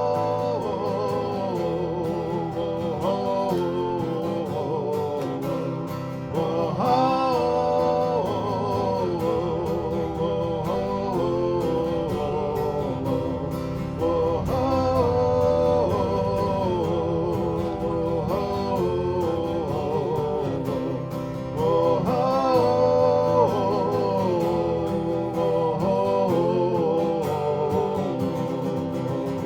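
Live acoustic guitar music closing a folk-country song, with a long, wavering melody line held over the chords.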